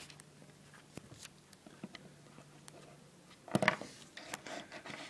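Handling noise from a handheld phone camera: scattered small clicks and taps as it is moved around a plastic action figure, then a cluster of louder knocks and rubbing about three and a half seconds in as fingers fumble over the phone.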